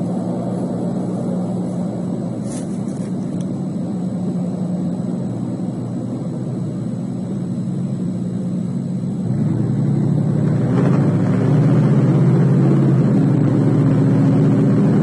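A motor vehicle engine running steadily, growing louder about two-thirds of the way through.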